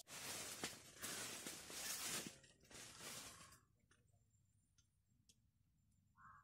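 Bursts of rough rustling noise for about three and a half seconds, then near silence.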